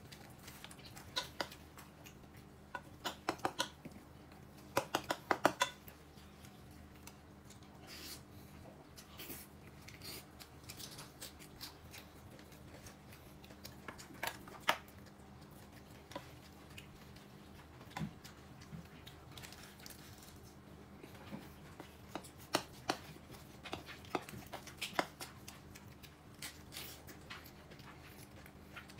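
Light, sharp clicks and taps of small objects being handled, coming in short quick runs a few times, with quieter stretches between.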